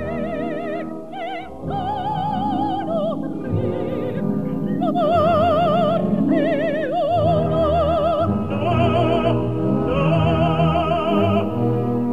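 Background music: an operatic voice singing long held notes with a wide vibrato over a classical accompaniment.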